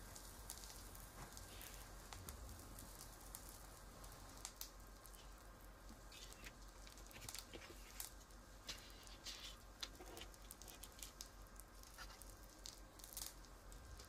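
Near silence with faint, scattered small ticks and taps, several a second at irregular intervals.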